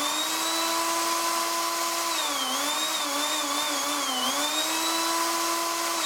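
Household blender's brushed universal motor, with carbon brushes, running on its fifth pulse button with the housing open: a hum with a high whine above it. Its speed wavers for a couple of seconds at a time and holds steady in between, and it starts to wind down at the very end. The button is working on a test run of the repaired push-button panel.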